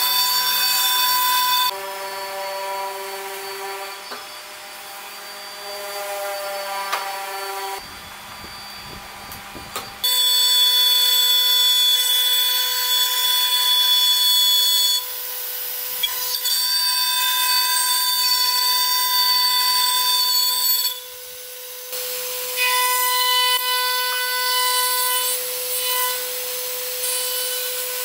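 Router spindle of a Leehyun multi-purpose CNC woodworking machine running and cutting wood, a steady high whine. The sound changes abruptly several times.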